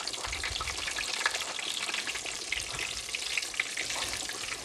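Breaded catfish fillets deep-frying in a pot of hot oil, freshly dropped in: a steady, dense sizzle full of tiny crackling pops.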